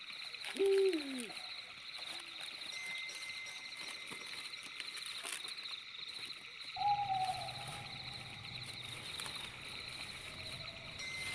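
Steady high trilling of night insects, with a short falling hoot about half a second in. A long, slowly falling tone over a low hum starts about seven seconds in.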